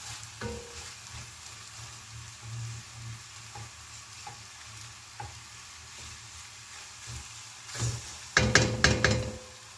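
Chicken pieces frying in onion and spice masala in a pot, a low steady sizzle, while a spoon stirs through them with occasional clicks against the pot. Near the end comes a burst of louder scraping and clattering strokes of the spoon on the pot.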